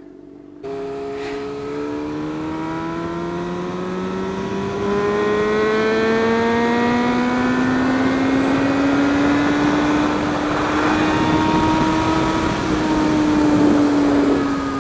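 Inline-four sport motorcycle engine pulling steadily under acceleration, its note rising slowly and evenly through one long gear, then easing off slightly near the end, with wind rushing over the microphone.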